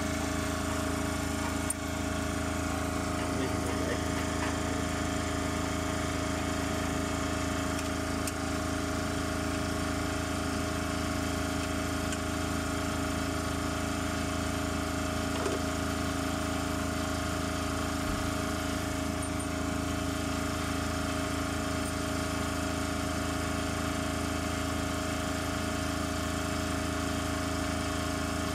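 A machine's motor running steadily at a constant pitch, with a couple of light metal clinks from hand tools.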